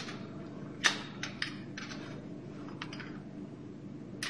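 Light metallic clicks and taps of drum brake parts being handled as the wheel-cylinder pushrods are seated between the brake shoes and the wheel cylinder, with one sharper click about a second in.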